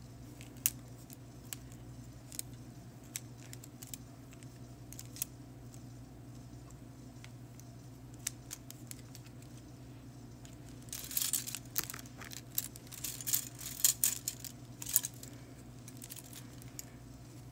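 Small hard clicks and clatter of nail tools and containers being handled while acrylic powder is swatched. The clicks are scattered at first, then come thick and fast for a few seconds, starting about eleven seconds in. A steady low hum runs underneath.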